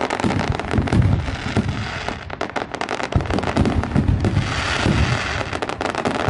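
Aerial fireworks display in a dense barrage: a constant rapid crackling of many small pops, with repeated low booms of bursting shells throughout.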